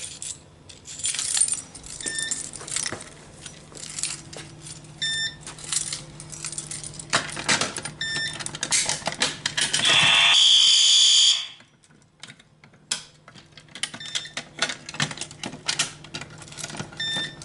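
Fire alarm system sounding on test after a pull station is activated. It gives a jangling clatter with short tone pips about every three seconds. About ten seconds in, a loud steady horn tone sounds for about a second and a half and then cuts off suddenly.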